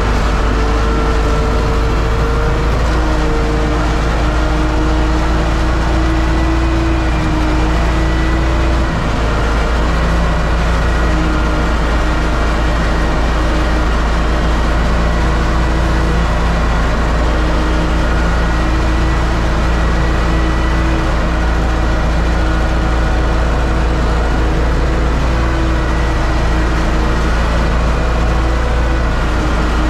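Universal U650 tractor's four-cylinder diesel engine running steadily under load while pulling a disc harrow, heard from inside the cab as a loud, even drone.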